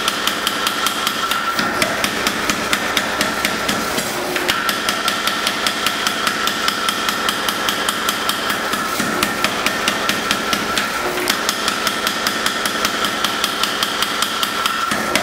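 Hammer blows on red-hot steel during forge welding, a long fast run of sharp, evenly spaced strikes with no pause.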